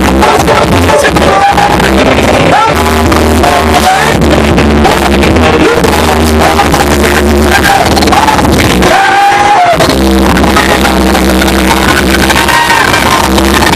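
Live rock band playing loud through a PA, with a lead vocal sung over it. The sound is harsh and overloaded, recorded too close to the speakers.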